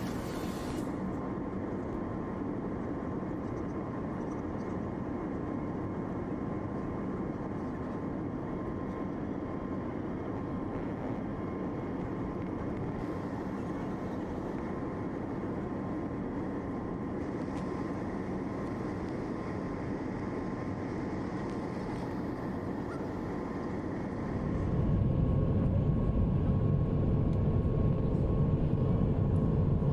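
Steady airliner cabin noise: a drone of engine and air noise with a faint steady tone. About 25 seconds in it jumps suddenly louder, with a deep rumble.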